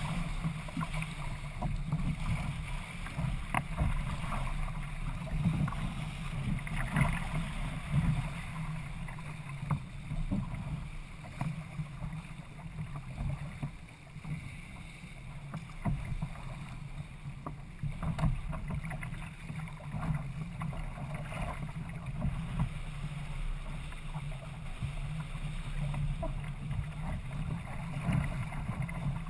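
Water rushing and splashing against the hull of a Hobie Adventure sailing kayak moving fast through choppy water, with wind rumbling on the microphone. Short, uneven splashes come throughout.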